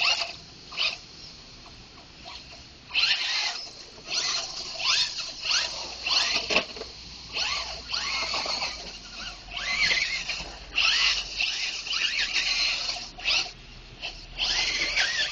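A Traxxas Slash RC truck revving in repeated short bursts: a motor whine that rises and falls in pitch as the throttle is blipped, with its wheels spinning in mud.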